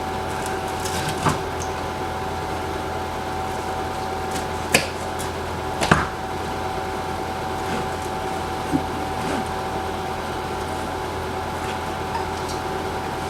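Knife cutting through a rack of smoked pork ribs, with a few short knocks on the board, over a steady mechanical hum.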